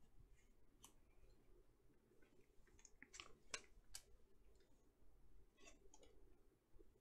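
Faint, scattered soft clicks and rustles of trading cards and thin plastic card sleeves being handled, over near silence.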